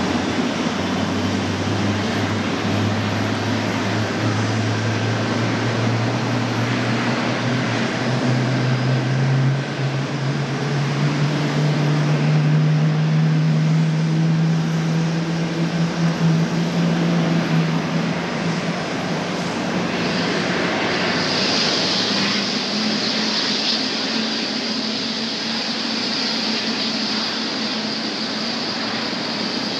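Jet airliner taxiing, its engines running steadily. A low hum rises in pitch through the first half and then fades. About two-thirds of the way in, a high whine comes in and holds.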